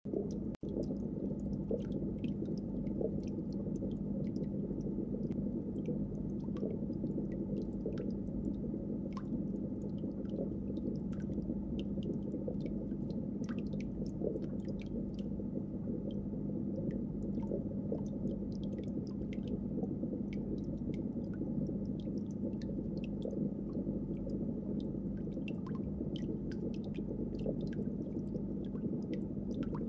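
Steady low hum and rumble of aquarium machinery, with one constant droning tone and scattered faint ticks.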